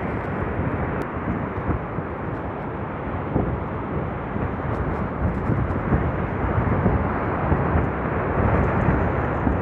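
Heavy windstorm wind blowing hard: a continuous rush with uneven surges in loudness as the gusts come and go.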